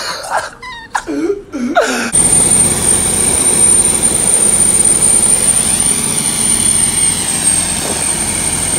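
About two seconds in, the loud steady engine of a motor canal boat under way takes over, with water rushing along the hull and a thin steady high whine over it.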